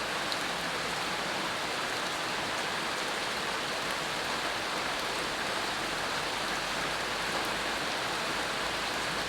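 Steady rain falling, an even hiss of drops with no distinct single patters standing out.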